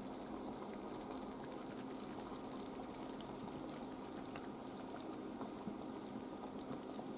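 A saucepan of meatball curry simmering, thick sauce bubbling and popping softly, over a steady low hum.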